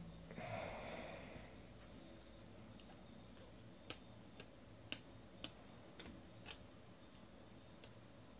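Faint clicks of 2018 Bowman baseball cards being flipped one at a time through the hand, about two a second, after a brief soft rustle of the stack near the start.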